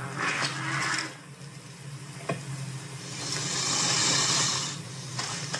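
An animal hissing twice, a short hiss at the start and a louder, longer one past the middle, with a sharp click between them.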